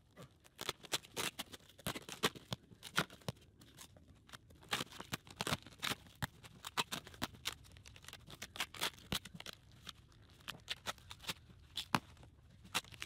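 Plastic wrap being torn and pulled off a cardboard shipping box: dense, irregular crackling and snapping, with the cardboard flaps being handled near the end.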